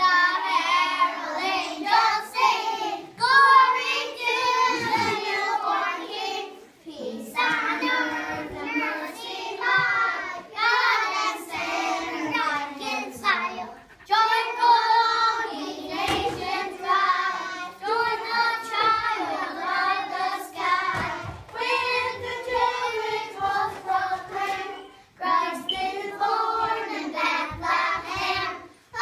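A group of young children singing a Christmas carol together in unison, phrase by phrase, with short breaks between the lines.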